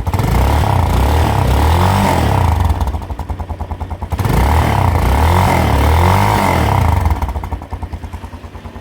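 Italika DM200 motorcycle's 200 cc single-cylinder engine revved twice from idle, each rev held about three seconds before dropping back to a pulsing idle. The exhaust muffler has one hole punched in it with a screwdriver, which makes the note a little throatier.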